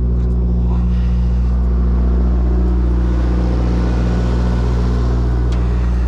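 An engine running steadily nearby, a constant deep hum; a light click sounds near the end.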